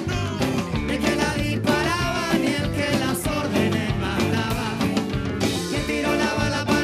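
Band music with a steady beat and a voice singing.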